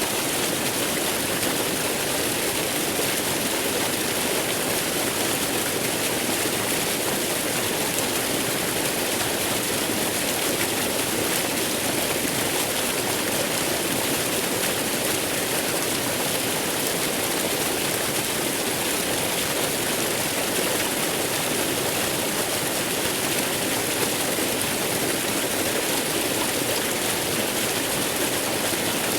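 Waterfall: water pouring and rushing in a steady, unbroken hiss and roar, with no changes.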